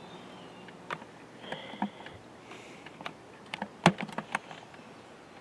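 Scattered light clicks and taps, a few close together, with a sharper knock about four seconds in.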